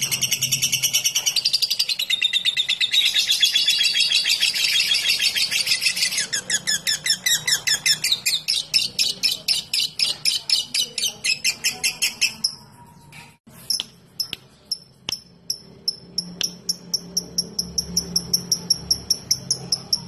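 Fischer's lovebird giving a long ngekek trill: a dense, fast stream of high chattering notes for about six seconds, turning into a rapid train of short notes that breaks off about twelve seconds in. After a brief pause with a few clicks, it carries on with a steady series of short high chirps, about four a second.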